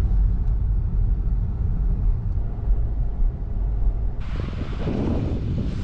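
Low, steady road and tyre rumble inside a moving car's cabin. About four seconds in it cuts to wind gusting over the microphone.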